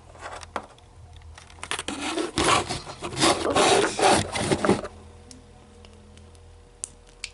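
Hands handling and shuffling small plastic toys and packaging on a surface: rubbing and scraping with scattered clicks, busiest for a few seconds in the middle.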